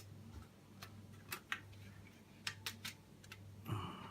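Scattered light clicks and taps of a metal plate cover and small screws being handled and set into an iPad mini's frame, over a steady low hum.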